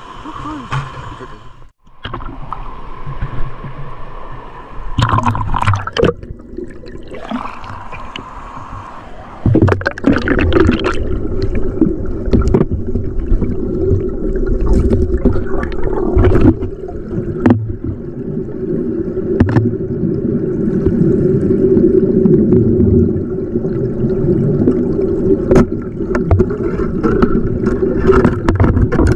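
Small boat's motor running steadily with water splashing and gurgling along the hull, getting louder about a third of the way in.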